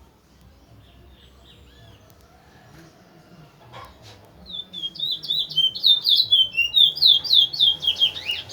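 Towa-towa seedfinch singing: a few faint chirps, then from about halfway a loud, fast song of rapidly repeated sliding whistled notes that runs on to the end.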